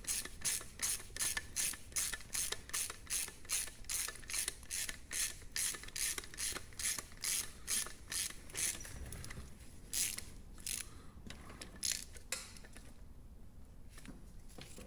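Hand socket ratchet clicking in steady back-and-forth strokes, about three clicks a second, as it runs a bolt into the gearbox seal housing. The clicks slow and thin out after about ten seconds and stop a couple of seconds before the end.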